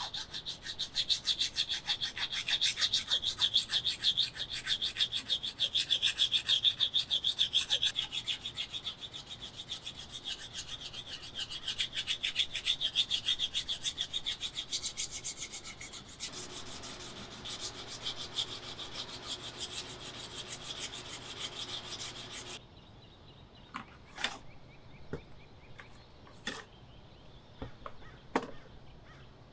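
Rapid back-and-forth abrasive rubbing strokes by hand on a machete, a steady scraping rhythm that stops suddenly about 22 seconds in. A few light clicks and taps follow.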